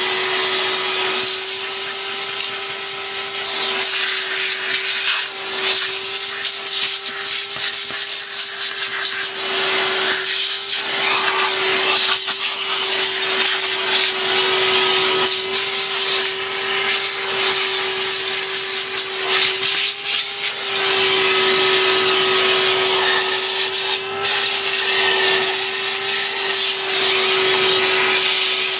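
Numatic Henry cylinder vacuum cleaner running steadily, a motor whine over a rush of air, as its crevice tool sucks dust out of a plastic cyclone bin. Irregular scraping and rubbing of the nozzle on the plastic sounds over it, with the whine dipping briefly now and then.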